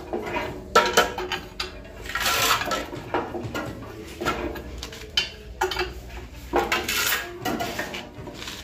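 Ring spanner clinking and scraping on the clamp nuts as a steel mortar cube mould is tightened down onto a vibration machine: irregular metal clinks with a couple of longer scrapes.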